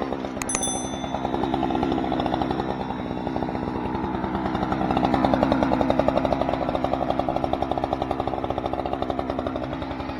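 An engine running steadily with rapid, even firing pulses, swelling a little louder about halfway through. A couple of sharp metallic clinks sound about half a second in.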